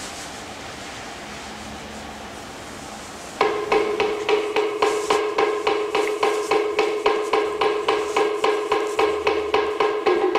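A steady hiss, then about three seconds in a music track starts: a brisk, even beat of pitched wooden percussion, about four strikes a second, each strike on the same ringing note.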